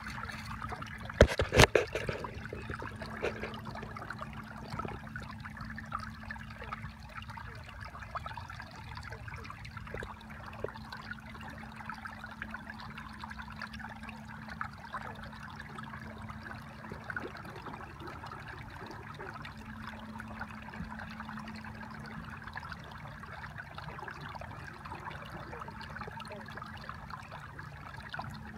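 Water trickling steadily over a low hum, with a few sharp knocks about a second and a half in.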